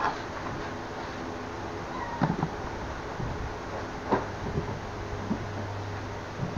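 Kittens eating from a large metal tray: a few short knocks and clinks against the dish, about two, four and six and a half seconds in, over a steady low hum.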